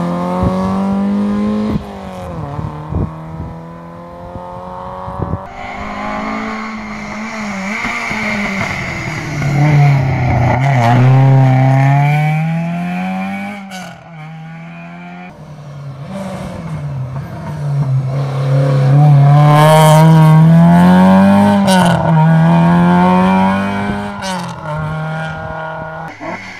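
Historic rally cars at full throttle on a stage. First a Toyota Corolla SR revs away with an upshift about two seconds in and fades off. Then a Ford Escort RS1600's four-cylinder Cosworth BDA engine comes in, revving hard through its gears and through a hairpin, loudest near the end.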